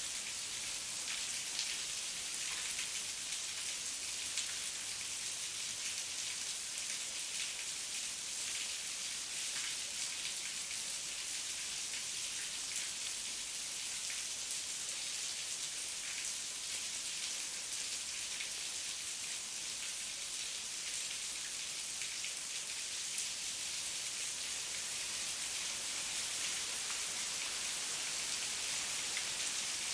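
Heavy rain falling steadily in a forest, a dense even hiss with the patter of individual drops.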